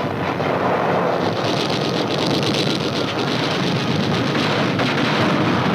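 A loud, steady, dense rushing noise with a faint rapid flutter through it, on an old film soundtrack.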